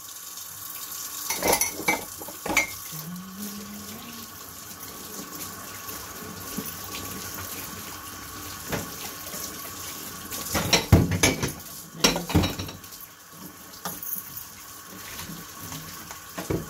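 A kitchen tap running into a sink while dishes and cutlery are washed by hand, with clinks and clatters every few seconds, the loudest about two thirds of the way through.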